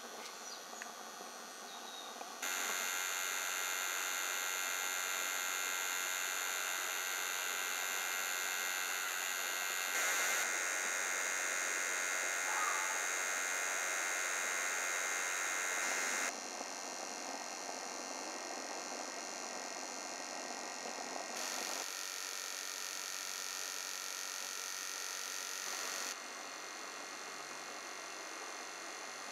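Steady hissing of live-steam Gauge 1 model locomotives in steam, with a faint hum, jumping abruptly up or down in loudness several times.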